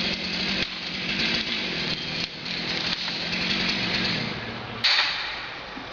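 Felled tree crashing down through the canopy: a loud rushing, crackling noise of breaking limbs and leaves, with a sharp crack about five seconds in, over a chainsaw idling low underneath.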